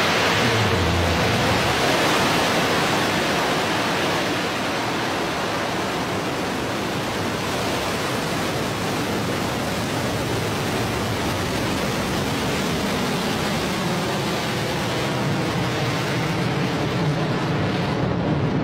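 Blue Origin New Shepard rocket's BE-3 engine firing through ignition, liftoff and climb: a steady, loud rushing noise that eases slightly after a few seconds.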